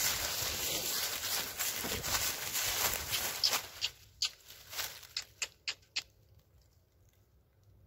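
Rustling and crunching of footsteps through dry leaf litter, dense at first. It then breaks into a handful of separate crunches before stopping about six seconds in.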